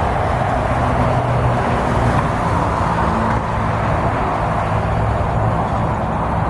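Steady traffic noise from cars passing on a multi-lane highway: a constant hiss of tyres over a low engine hum.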